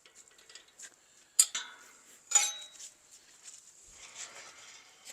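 Two sharp metal clanks about a second apart, each ringing briefly, with faint lighter clinks between them.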